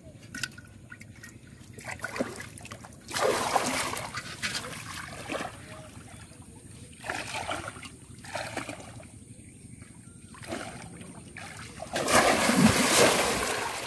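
Splashing in shallow water: feet wading through it in several separate bursts, then a bamboo polo fish trap plunged down into the water, the loudest and longest splash near the end.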